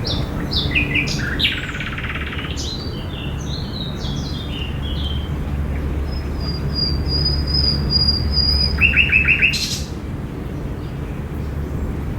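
Several songbirds chirping and calling in a park: a cluster of quick varied chirps, then a long thin high whistle, then a fast run of about five notes, over a steady low rumble.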